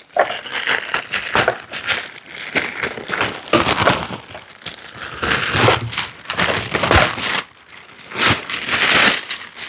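Packing material being handled and pulled around: irregular crinkling and crumpling rustles, with a brief lull about three-quarters of the way through.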